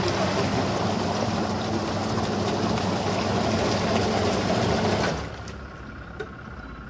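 A motor running steadily, which drops away sharply about five seconds in.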